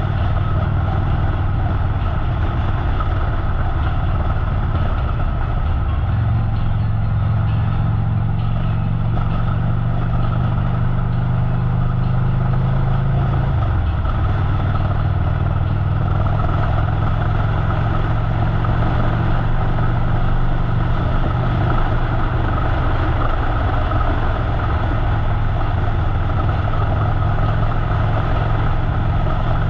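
Harley-Davidson V-twin motorcycle engine running at road speed under a steady haze of wind and road noise. The engine note steps up about six seconds in and drops back about eight seconds later, then holds steady.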